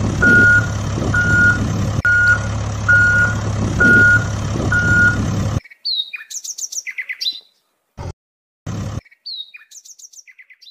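Truck reversing alarm beeping about once every 0.8 s over a steady engine hum, cutting off abruptly about halfway through. Then birds chirping in short gliding calls.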